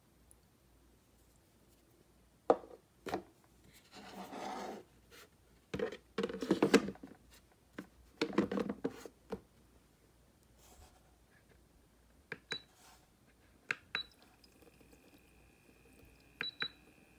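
Plastic knocks and scraping as the cover of an ultrasonic essential-oil diffuser is handled and set onto its water reservoir. Then its control buttons are pressed, each press a click with a short beep, the last a quick double beep, and a faint steady high tone comes in near the end.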